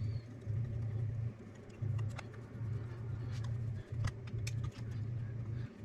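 A low hum that drops out briefly several times, with a few light clicks from the screws and tools as the two cap screws are fitted to the carburetor.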